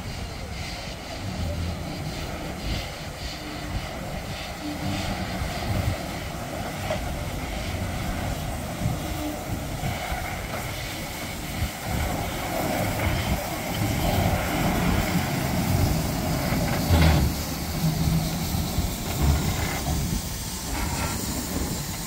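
Steam saddle-tank locomotive in the shed yard: a low, uneven rumble with a sharp knock about two-thirds of the way through.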